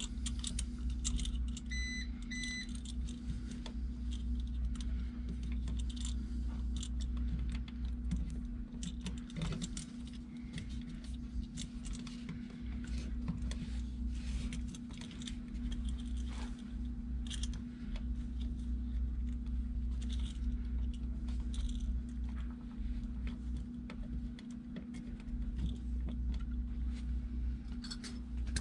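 Small metallic clicks and jingles as a 20 amp electrical receptacle and its wires are handled and its terminal screws snugged up, over a steady low hum. Two short high beeps sound about two seconds in.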